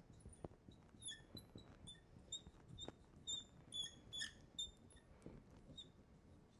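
A marker squeaking faintly on a glass lightboard as it writes: a quick, irregular series of short, high squeaks.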